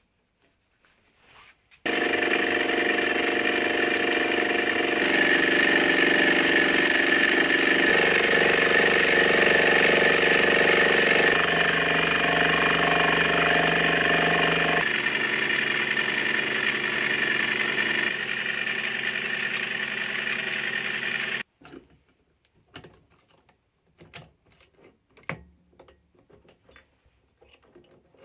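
Mini lathe spindle turning an end mill held in an ER collet chuck, milling a flat on a metal workpiece clamped to the cross slide: a loud, steady machining sound with a high whine that starts about two seconds in and shifts in tone abruptly several times. It cuts off suddenly about 21 seconds in, followed by light clicks and clatter of the clamped part being handled.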